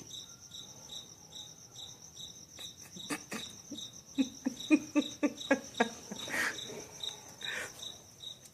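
A cricket chirping steadily, high-pitched, about two chirps a second. From about three to six seconds in comes a quick run of about ten soft clicks, some three a second, the loudest sound here.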